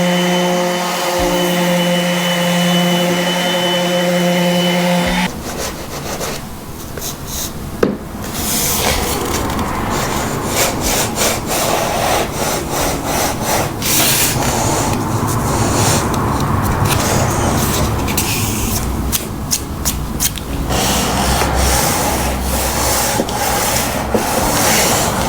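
A power tool's motor runs with a steady hum for about five seconds. Then comes a long stretch of rough, irregular rubbing and scraping on the oak veneer MDF board.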